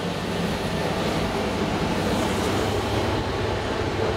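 Elevator car of a new SMW traction elevator travelling in its shaft: a steady rumble with a constant low hum, swelling slightly as the ride gets under way.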